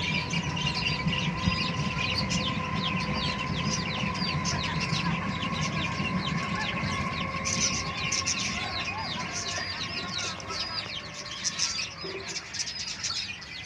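Country chicken chicks peeping, a continuous run of short high cheeps, over a steady background hum.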